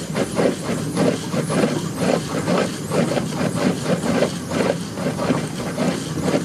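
Marina pump-out suction pump running, pulling water and waste out of a boat's holding tank through the hose while the tank is flushed with fresh water. It is a steady hum with a hiss and a rapid, uneven pulsing of about two to three beats a second.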